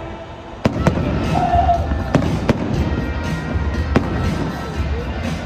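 Aerial fireworks show exploding: a sudden volley of sharp bangs begins about half a second in and goes on with more booms over a continuous low rumble and crackle, with music playing underneath.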